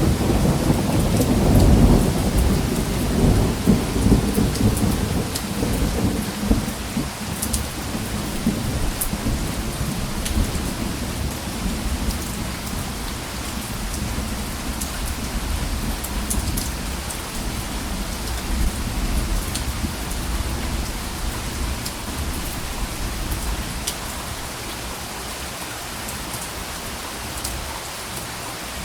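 Steady rain with a roll of thunder that peaks about two seconds in and rumbles away over the next several seconds, leaving the rain falling alone with scattered drops ticking.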